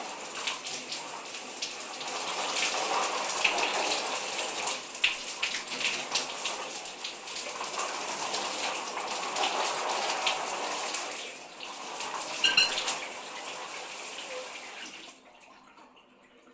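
Shower water spraying and splattering steadily, with irregular splashes. About twelve seconds in there is a brief cluster of sharp clicks, and near the end the spray stops suddenly, leaving only faint sound.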